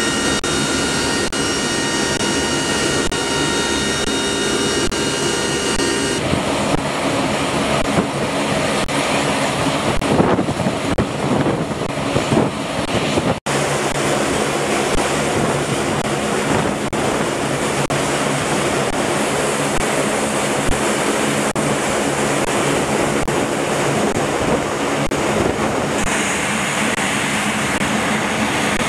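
Steady, loud drone of the KC-130J Hercules's four turboprop engines heard inside its cargo hold, with several held steady tones. After cuts about six and thirteen seconds in, steady aircraft engine noise carries on at the flight line.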